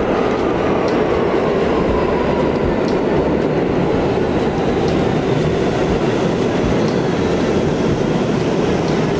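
New York City subway train running, a loud steady rumble with faint high wheel squeal and light regular ticks over it.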